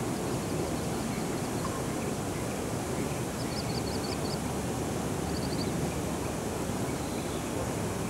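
Steady low rushing outdoor background noise. Over it, a bird gives two short runs of quick high chirps near the middle, about five notes and then four.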